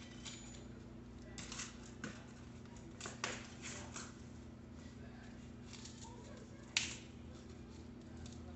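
Scattered small clicks, scrapes and rustles of hands handling bicycle cables and fittings, with one sharper click about seven seconds in, over a steady low hum.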